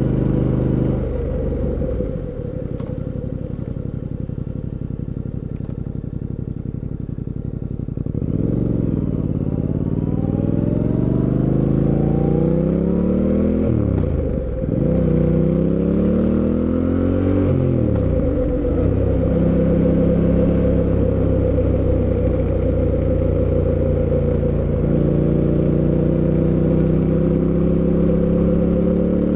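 Fantic Caballero 700 Scrambler's parallel-twin engine. It drops to a low, steady note off the throttle for several seconds, then pulls up through the gears with rising pitch and two short dips at the shifts, holds a steady cruise, and starts climbing again near the end.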